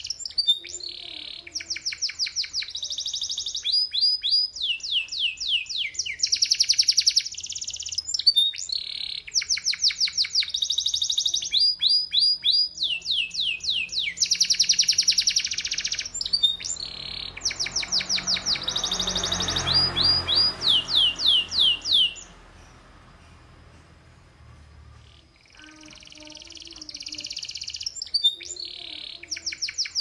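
Domestic canary singing: a long song of rapid rolling trills, each phrase a fast run of repeated falling notes, changing from one trill to the next every second or two. The song breaks off about two-thirds of the way in, then starts again near the end.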